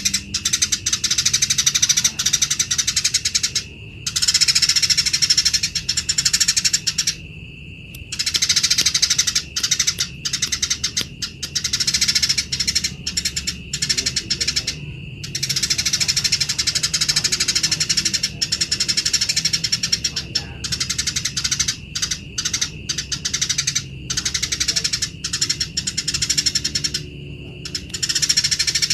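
Eurasian tree sparrows chattering harshly in fast, continuous bouts, fighting calls, broken by brief pauses every few seconds.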